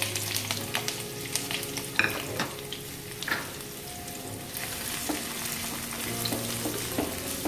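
Sliced onion sizzling steadily in hot oil in a frying pan, stirred with a wooden spatula that knocks and scrapes against the pan now and then.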